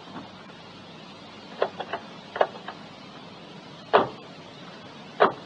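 Scattered short knocks and clicks at uneven intervals over a faint steady hiss: a quick cluster of light ones, then two louder, sharper knocks about four seconds in and near the end.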